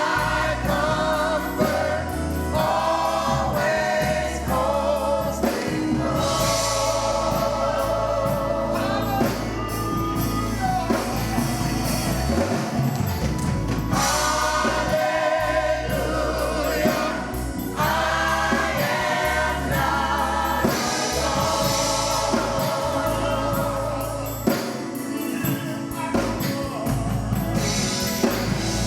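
Gospel choir singing a slow worship song in phrases, with instrumental accompaniment and a steady bass line underneath.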